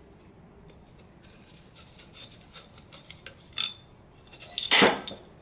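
Small metal engine parts and tools being handled on a workbench: scattered light clicks and clinks, one with a short metallic ring, and one louder clank near the end.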